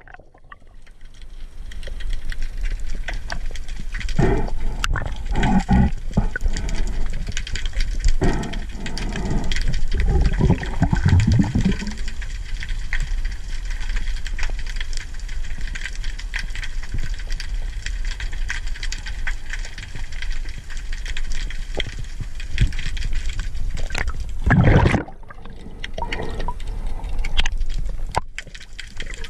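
Underwater sound picked up by a camera beneath the surface: a steady hiss full of fine crackling clicks, with water rushing and gurgling past in low surges, heaviest in the first half and once more near the end.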